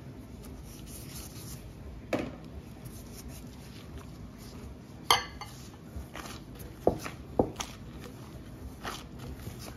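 Dough being mixed and kneaded by hand in a glass mixing bowl, with a handful of sharp clinks and knocks against the glass; the loudest comes about five seconds in and rings briefly.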